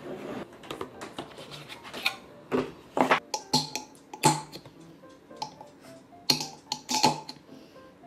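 Sharp plastic clicks and knocks from a Jenniferoom electric egg cooker being set up: its lid and parts handled and eggs set down into the plastic egg rack. About a dozen separate taps, unevenly spaced.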